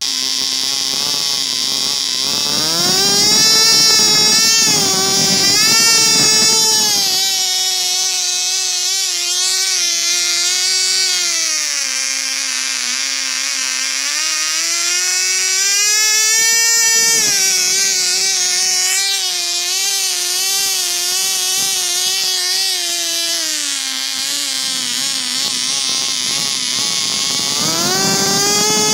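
COX Tee Dee .010 two-stroke glow engine running at high speed with a high-pitched whine, its pitch rising and falling several times.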